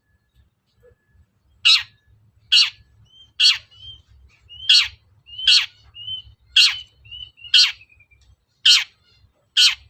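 Long-tailed shrike giving harsh, scolding calls, nine of them at about one a second, starting nearly two seconds in. Short thin whistled notes come between the calls in the middle stretch.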